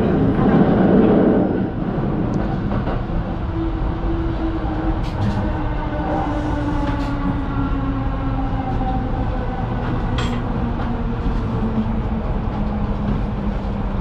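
Electric train running and slowing as it comes into a station, heard from inside the carriage: a steady rumble of wheels on rail under a motor whine that falls slowly in pitch. The rumble is louder for the first couple of seconds, and there are a few short clicks.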